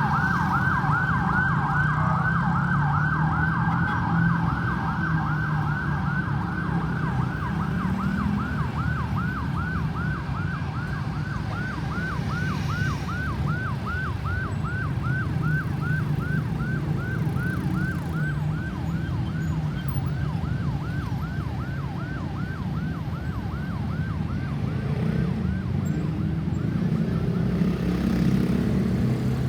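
Ambulance siren on a rapid yelp, sweeping quickly up and down over and over, fading away over about twenty seconds until it can no longer be heard. A steady low traffic rumble continues throughout.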